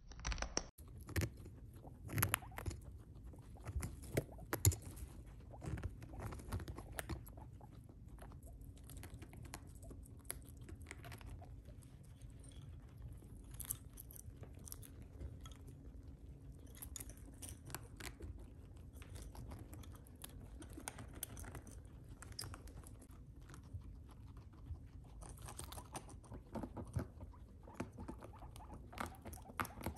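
Guinea pigs chewing and nibbling on hay and dried apple-wood sticks. It comes through as faint, irregular little crunches and clicks, with soft scrabbling on fleece.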